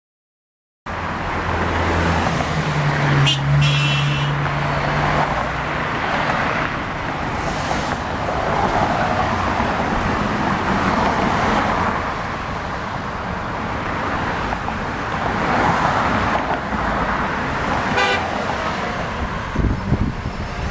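Road traffic passing steadily, with car horns honking: a couple of short blasts about three seconds in and another near the end.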